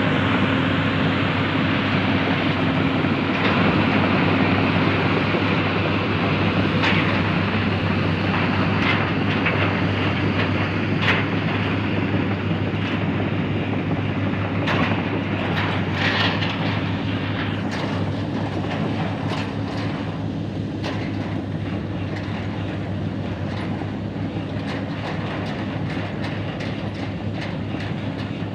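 Tracked excavator travelling: a steady diesel engine hum with the steel crawler tracks clanking and squeaking.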